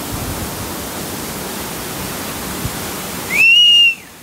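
Mountain stream rushing steadily. Near the end a short, loud whistle rises, holds and falls, and the rushing water drops away at the same moment.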